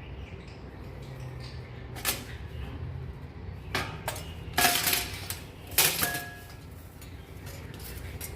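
Heavy metal clutch parts and tools clanking and clinking: about five separate knocks, the louder two near the middle ringing briefly like struck steel.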